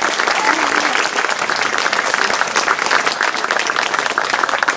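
Audience applauding steadily: many hands clapping at once.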